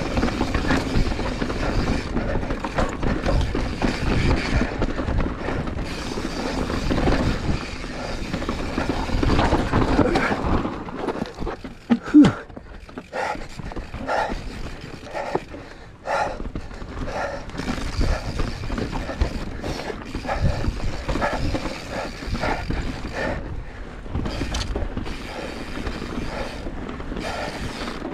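Mountain bike rolling over rocky dirt singletrack: tyre noise and the bike rattling over stones, with wind on the microphone, and a brief loud sound about twelve seconds in. From then on the rider is breathing hard, short breaths about once a second.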